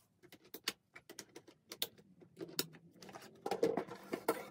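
Cardboard-and-plastic toy blaster packaging being handled: a run of light, separate clicks and taps, then louder rustling and scraping of the cardboard box from about three and a half seconds in.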